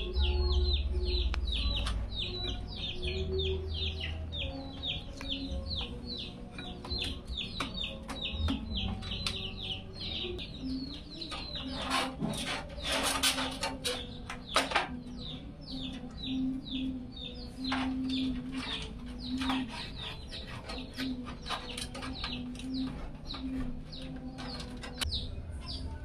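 Birds chirping in quick short calls, about three a second, with intermittent lower clucking. A burst of clicks and rustle comes about twelve seconds in.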